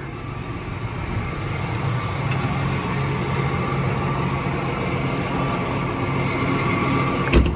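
John Deere 7R310 tractor's diesel engine idling steadily, with a single sharp knock near the end.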